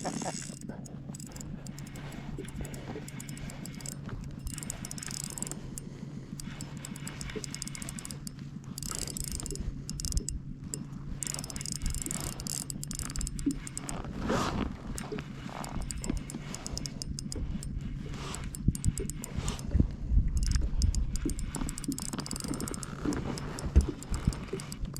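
Spinning fishing reel clicking and whirring in rapid, uneven ticks as a lake trout is played on it, over a steady low hum.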